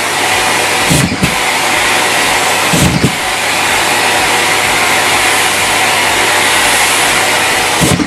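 Miele C3 cylinder vacuum cleaner running steadily with a loud suction hiss as its floor head is pushed over socks on carpet. Short low thuds come about a second in, around three seconds and near the end, each with a brief dip in the suction noise.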